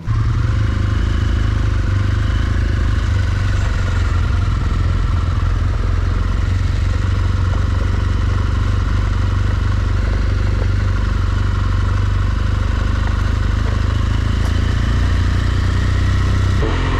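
BMW R1200 GS Adventure's boxer-twin engine droning at a steady cruise, mixed with wind and road noise. The engine pitch holds level throughout.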